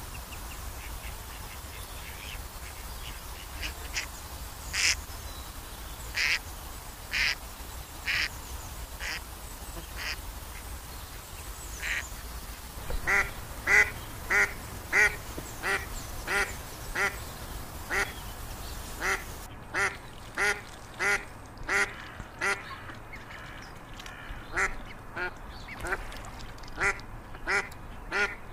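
Ducks quacking in a steady series of short calls, about two a second, from about halfway through. Before that, sparser single high-pitched calls come roughly once a second.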